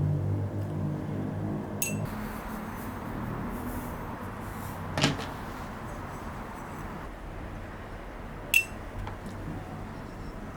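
Kitchen handling sounds: three sharp knocks or clicks spread over several seconds, the last one the loudest, over a low hum that fades after the first few seconds.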